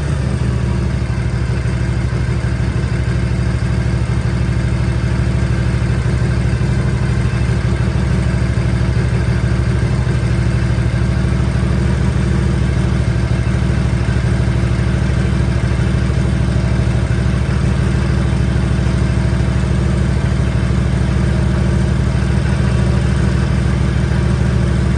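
1957 Harley-Davidson Panhead's overhead-valve V-twin engine idling steadily, early in its first run after a top-end rebuild (new oversize pistons, lapped valves).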